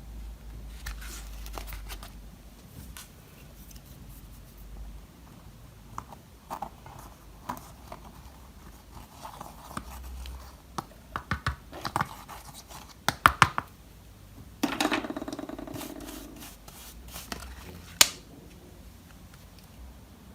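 Hands working slime at close range: sticky clicks and pops, with a cluster of loud snaps past the middle, a longer crackling squish just after, and one more sharp snap near the end.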